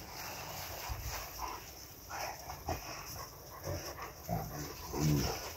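Boerboel dogs playing, with a few short, scattered vocal sounds and a brief, lower-pitched call near the end.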